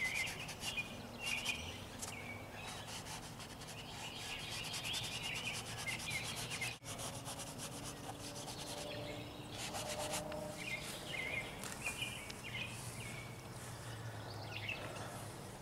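Paper towel rubbed over wet oil paint on a canvas to blend it, a soft scratchy rubbing that comes in spells, with birds chirping throughout and a low steady hum underneath.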